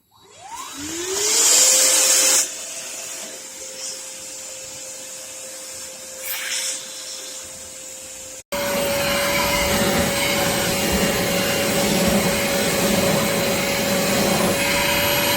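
ReliaRoads 20V cordless wet/dry shop vac switched on: its motor whine rises over about a second and settles into a steady tone, with a loud rush of air for the first couple of seconds. About eight seconds in it cuts abruptly to the vac running louder, with more rushing air.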